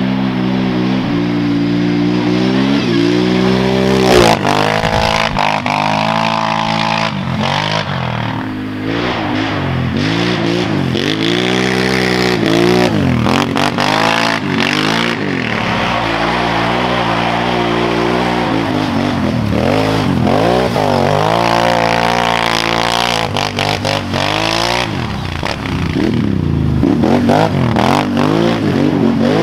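Can-Am Renegade 1000 ATV's Rotax V-twin engine through a Two Brothers dual exhaust, ridden at full throttle and revved up and down again and again, its pitch climbing and dropping many times.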